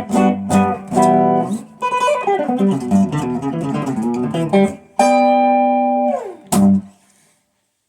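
Guitar playing a tune: strummed chords, then a quick run of picked single notes. A held chord slides down in pitch, and a final short chord comes about six and a half seconds in, then dies away.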